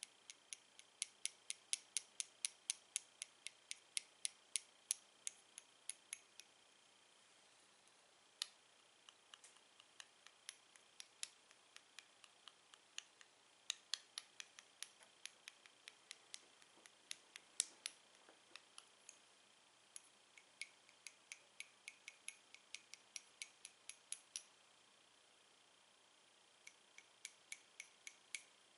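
Two sticks of chalk tapped against each other: a steady run of light, sharp clicks, about three or four a second, with a faint ring. The tapping stops and starts again a few times.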